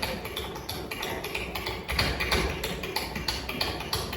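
Metal-tipped tap shoes striking a wooden stage in quick, dense runs of taps, with a steady rhythm and several strikes a second.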